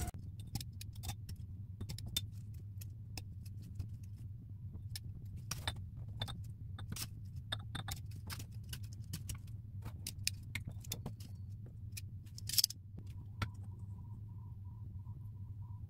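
Light clinks and taps of glass jars and a spatula against a stainless-steel bowl while sugared lemon and grapefruit slices are packed into jars, over a steady low hum. The loudest clink comes about halfway through the second half, and a faint wavering tone joins near the end.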